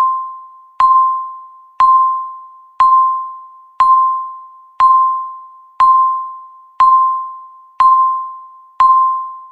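Countdown timer beep: a single clear electronic tone struck once a second, each beep fading away before the next, ten in a row ticking off the last seconds before zero.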